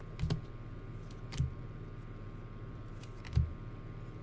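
Three light taps on a desk, a second or two apart, over a faint steady electrical hum.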